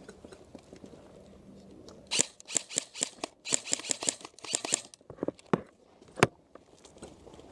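A run of quick, sharp clicks, then a few single clicks and one louder crack, from an airsoft M4 rifle and its magazine being worked while the magazine is acting up.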